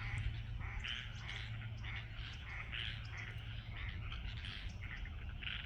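A chorus of frogs and ducks calling, many short overlapping calls several times a second, over a steady low hum.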